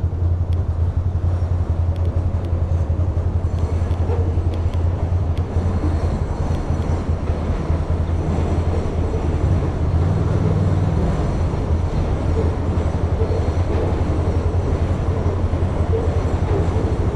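Steady low rumble of a 2006 Ducati Monster 620's air-cooled V-twin, running at low speed in stop-and-go traffic.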